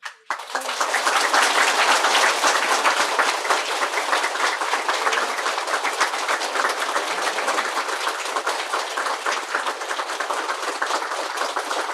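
Audience applauding: many people clapping together, starting suddenly and going on steadily, easing slightly after the first few seconds.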